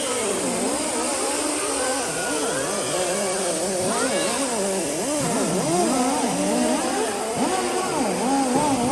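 Handheld power tool running continuously, its motor pitch wavering up and down as it is pressed against and eased off the surface, during paint and corrosion removal on aircraft skin.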